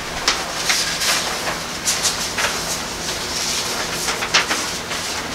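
Paper rustling in short, irregular scrapes as notes are handled, over a steady low hum.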